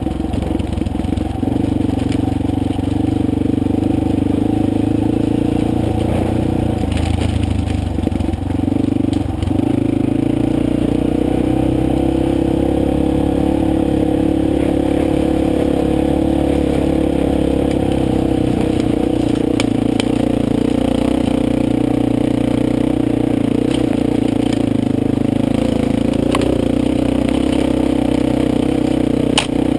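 Motorcycle engine running steadily while riding a gravel forest road, its note shifting about ten seconds in, with stones crunching and clicking under the tyres.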